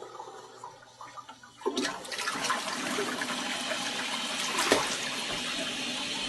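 Toilet flushing: a sudden rush of water starts about two seconds in and keeps going.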